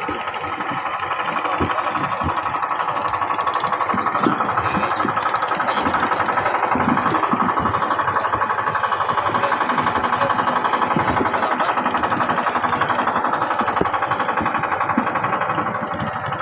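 Yamaha 15 hp outboard motor running steadily with a rapid, even pulse, pushing a boat loaded with coconuts.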